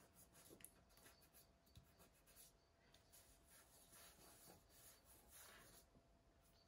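Faint, soft rubbing of fingers pressing and smoothing freshly glued card cut-outs of stork wings onto the card body, a light stroke every second or so, otherwise near silence.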